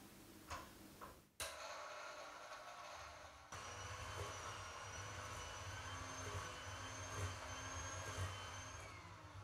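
Electric hand mixer switched on about a second and a half in, after two small clicks. Its beaters whir through softened butter and sugar in a glass bowl, creaming them. About a third of the way in it steps up to a higher speed and runs steadily, with a high whine over a low motor hum.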